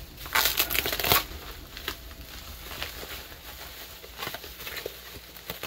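Bubble wrap and a plastic mailer bag crinkling and tearing as a parcel is unwrapped by hand, with a burst of loud crackling in the first second, then lighter rustling.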